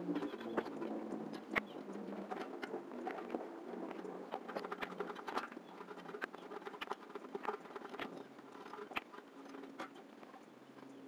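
Irregular small clicks, taps and rustles of a cable being handled and pulled around a plastic satellite dish and its metal mount.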